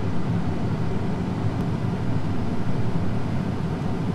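Case IH Magnum tractor's engine running steadily, heard from inside the cab, while its hydraulics fold up the wings of an anhydrous toolbar.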